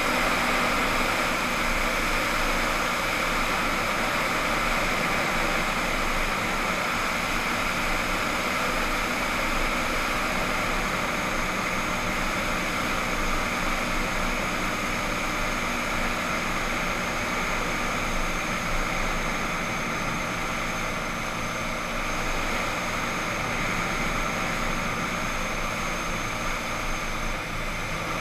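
Cessna 206 single-engine piston aircraft in flight: the engine and propeller drone steadily under a rush of air, heard from a camera mounted under the wing.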